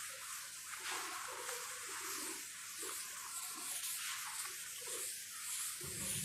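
Chalkboard duster rubbing across a blackboard in repeated strokes, erasing chalk writing.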